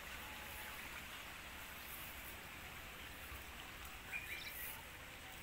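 Rice-paddy ambience: a steady hiss of insects or running water, with a few faint, short chirps from small birds. There is one brief tick about four seconds in.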